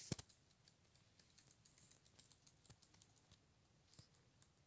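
Faint, scattered light taps and clicks of a budgerigar moving about on a hard surface, with two sharper clicks at the very start; otherwise near silence.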